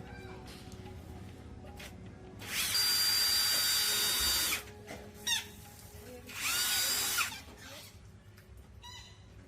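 An electric power tool's motor runs in two bursts, the first about two seconds long and the second about one second. It spins up and winds down each time.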